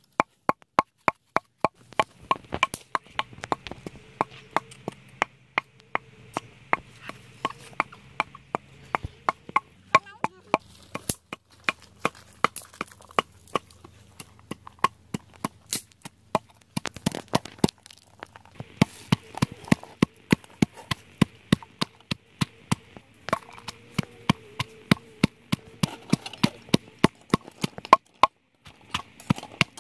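Wooden pestle pounding in a mortar, crushing lemongrass, garlic and chillies into a spice paste: rapid, even knocks about two to three a second, with brief pauses twice near the end.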